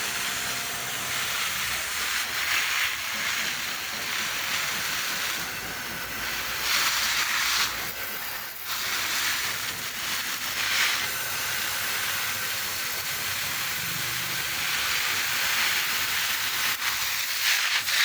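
Steady, fairly loud hissing noise with swells every few seconds.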